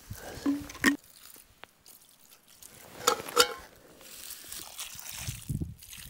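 Water poured from a bottle onto a campfire's smouldering embers to douse them, trickling and splashing, with a few short sharp knocks about one and three seconds in. Low scuffing sounds follow near the end.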